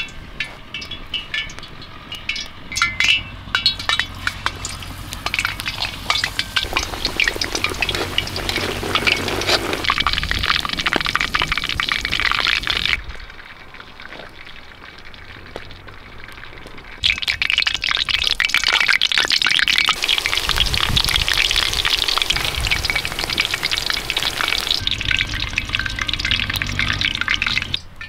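Battered fish fillets deep-frying in a cauldron over a campfire: a dense, crackling sizzle that drops away for a few seconds midway, then comes back. A few light clinks come at the start.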